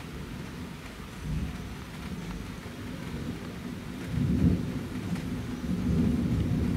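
Rolling thunder from a thunderstorm, a low rumble that swells loudest about four seconds in and builds again near the end, over steady rain.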